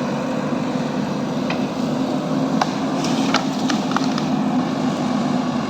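Steady low engine drone, with a few short high-pitched ticks scattered through the middle.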